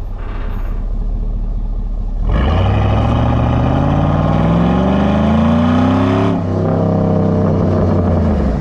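Chevrolet SSR's V8 with a Corsa exhaust, heard at the tailpipe, idling and then revved once: about two seconds in, the engine note climbs steadily for about four seconds, then drops sharply back to idle.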